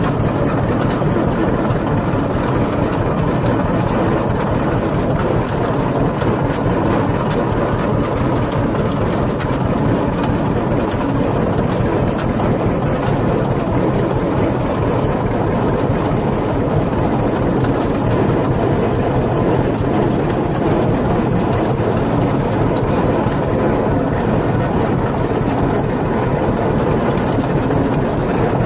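Engine of the vehicle towing a loaded manure spreader, running steadily as it drives across a field, with wind buffeting the microphone.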